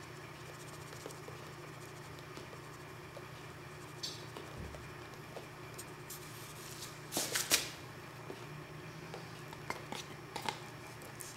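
Steady low hum with scattered small clicks and ticks, and a short cluster of louder scratchy noises about seven seconds in.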